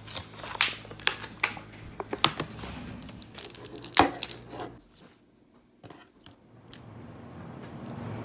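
Slime being handled by hand: a run of crackling clicks and pops for about five seconds, then a short lull and a soft, steadily rising noise near the end.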